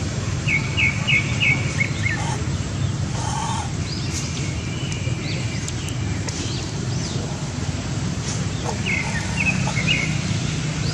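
Short high chirping calls in quick runs of four or five notes, one run about half a second in and another near the end, with scattered chirps between, over a steady low background noise.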